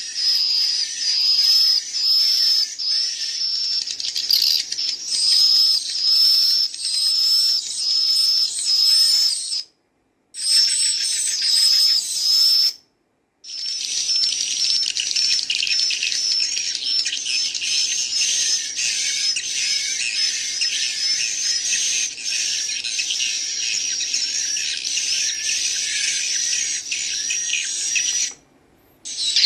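Recorded calls of swiftlet chicks played through a gadget's speaker. At first a high chirp repeats about every half second or so. After two brief dropouts it becomes a dense, continuous chatter of many chirps, showing that young swiftlets have more than one call.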